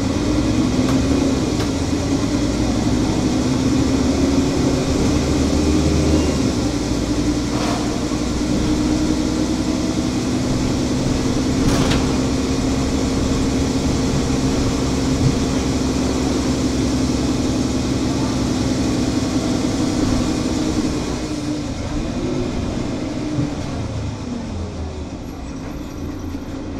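Mercedes-Benz Citaro city bus's OM 457 hLA inline-six diesel idling at a standstill, a steady hum with a whine over it. The whine fades about twenty seconds in and the running gets slightly quieter.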